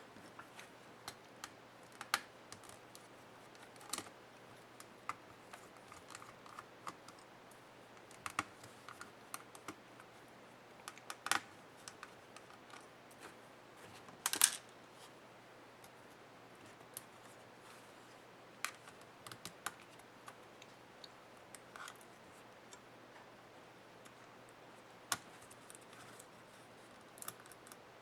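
Irregular small clicks and taps of hand tools and plastic and metal parts as a Dell Latitude 7300 laptop is taken apart, a few louder snaps among them, with quiet gaps between.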